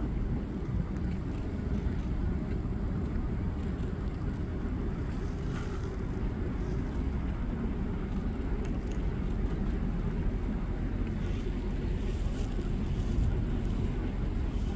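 Wind buffeting the microphone: a steady low rumble with no distinct sound standing out over it.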